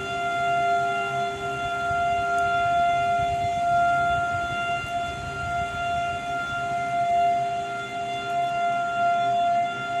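Outdoor air raid siren (civil defense warning siren) sounding its scheduled weekly test. It holds a steady two-note wail at full pitch, and its loudness swells and fades slowly.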